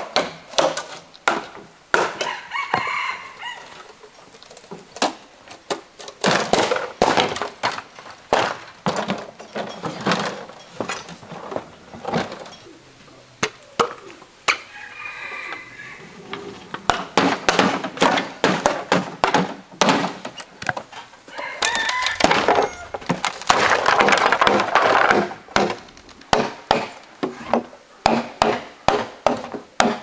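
Many sharp wooden knocks and chops as bamboo is struck with a wooden piece and cut with a machete. A rooster crows a few times among them.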